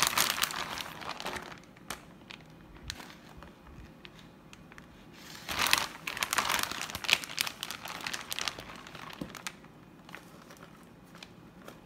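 Plastic bag of shredded cheese crinkling as it is handled, in two spells: one at the start and a longer one about six seconds in, with a few small crackles between.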